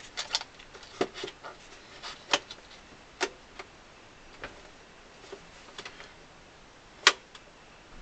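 Clamps being handled and fitted onto an accordion's body while celluloid is glued down: scattered sharp clicks and knocks, the loudest about seven seconds in.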